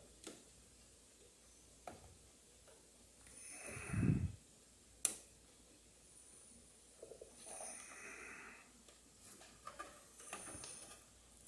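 A person breathing heavily close to the microphone, several long breaths, the loudest about four seconds in. A few sharp clicks come in between, the loudest just after it, while RAM modules are being pressed into their slots.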